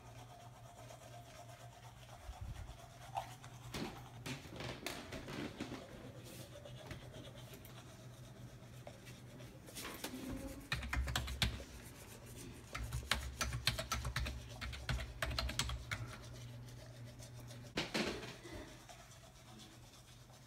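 Typing on a computer keyboard in clusters of quick clicks, over a low steady hum.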